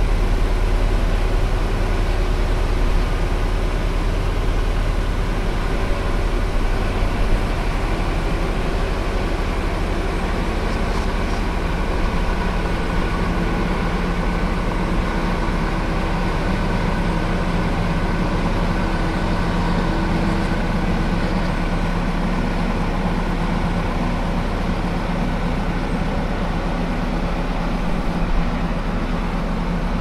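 Heavy farm machinery engine running steadily, a continuous mechanical drone with a low hum and no breaks.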